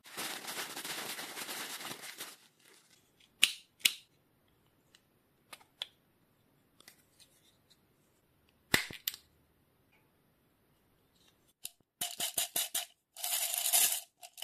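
A hydraulic bicycle brake hose being cut to length: sharp clicks and snips of the cutting tool, a quick run of clicks near the end and a short rasping cut just after. A steady hiss fills the first two seconds.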